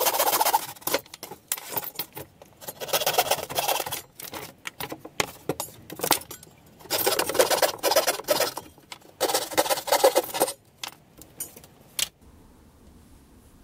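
Junior hacksaw sawing through 6 mm plywood to cut machined parts free of the sheet, in four short bouts of rapid strokes, with clicks and rattles of the plywood between them.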